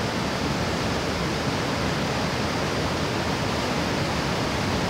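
Muddy floodwater rushing steadily down a seasonal river in spate after heavy rain.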